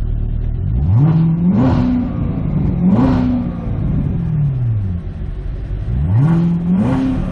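Chevrolet Corvette C7 ZR1's supercharged 6.2-litre V8 revved three times while parked, heard from inside the cabin: each rev climbs quickly, holds briefly, then falls back more slowly toward idle.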